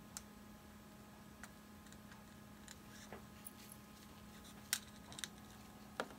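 Faint steady hum with about six light, scattered clicks and taps as gloved hands work a small tool over a wet acrylic pour painting; the clearest two come near the end.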